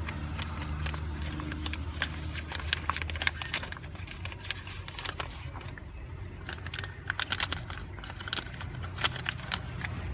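Irregular light plastic clicks and taps from handling a small plastic side turn signal lamp, over a steady low hum.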